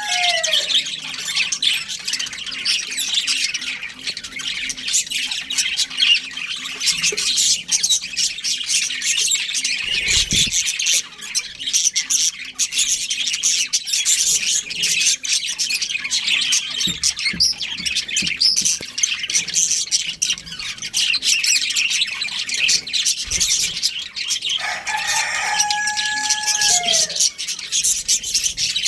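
Pet budgerigars chirping and chattering rapidly and without a break, with many overlapping high calls. About 25 seconds in, a lower call is held briefly and then falls away.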